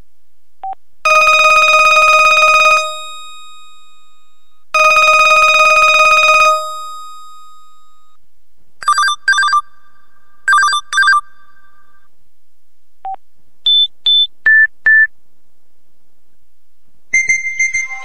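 Built-in ringtones of an LG Voyager VX10000 mobile phone, recorded as direct audio transfers. Two long buzzy electronic rings of about two seconds each come first. Pairs of short chirping trills follow, then a few short single-pitch beeps, and a musical ringtone begins about a second before the end.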